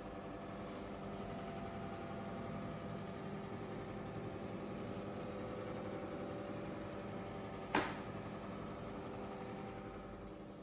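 Bathroom extractor fan humming steadily, louder in the middle and easing off near the end. One sharp click about eight seconds in.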